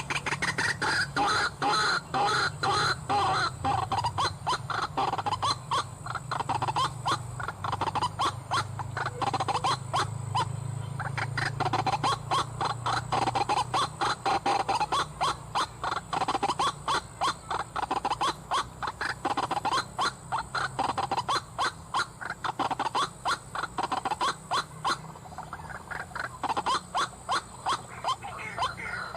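White-breasted waterhen calls played from an mp3 lure: a continuous fast run of short, harsh croaking notes, the bird's 'kruak kruak' call, used to draw a waterhen to the snare.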